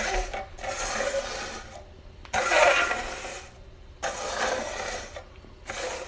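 Plastic party cups slid and scraped across a hard countertop as they are shuffled, in about four rasping strokes of roughly a second each with short pauses between.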